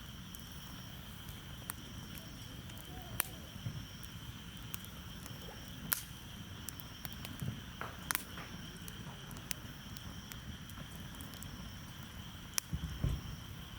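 Crickets chirring steadily in high, even tones, with scattered sharp clicks and a low background rumble.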